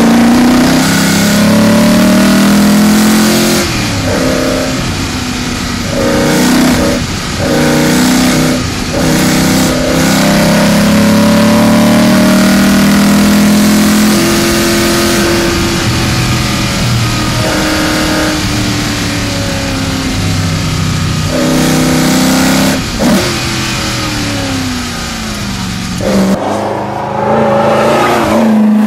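GT40 replica's V8 engine heard from inside the cabin, driven hard: the engine note climbs, breaks off at each gear change and falls away when the car slows for bends, over wind and tyre noise. Near the end the sound switches to the same kind of car passing by from outside.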